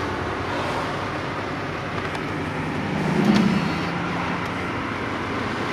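Car driving, heard from inside the cabin: steady road and tyre noise, with a brief louder swell and low hum about three seconds in.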